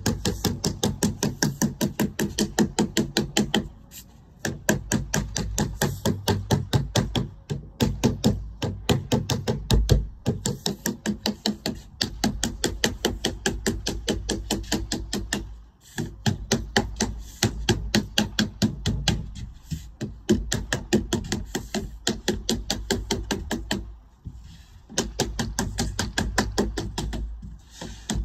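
A lead dresser beating code 5 lead sheet down over the edge of a coping stone: a quick, even run of thuds about three a second, with a few brief pauses.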